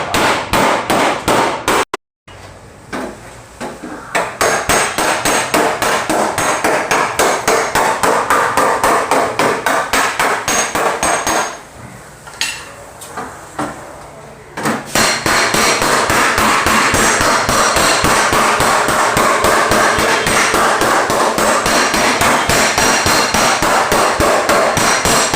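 Rapid hammer blows on sheet metal, about three or four a second: panel beating out a dent in a car body. A brief break about two seconds in and a quieter, sparser stretch in the middle.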